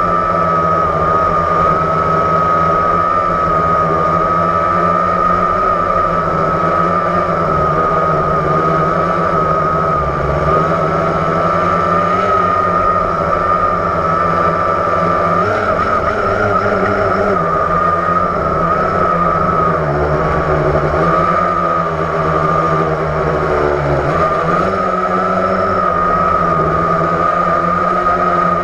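Blade 350 QX quadcopter's electric motors and propellers whining steadily, heard up close from on board, the pitch wavering slightly as it adjusts in flight.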